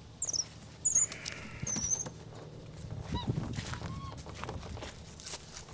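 Capuchin monkeys giving several short, high-pitched squeaks in quick succession.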